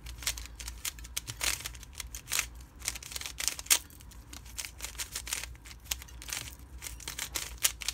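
Plastic 3x3 speed cube being turned by hand, its layers clicking and clacking in quick, irregular bursts. The cube has just been lubricated and is still stiff, with the turning working the lube in.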